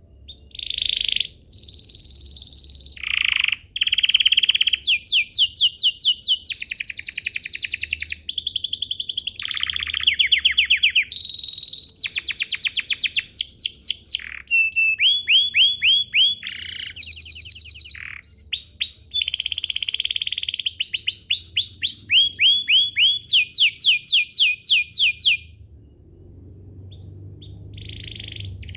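Domestic canary singing a long song of rapid rolling trills, phrase after phrase of fast repeated high notes at shifting pitches, pausing about 25 seconds in and starting again at the very end.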